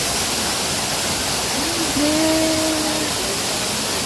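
Waterfall: a steady rush of falling water, with a short voice heard briefly about halfway through.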